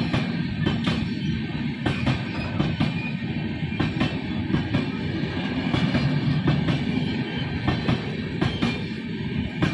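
Passenger train coaches rolling past, wheels clicking and knocking over rail joints at irregular intervals, with background music laid over them.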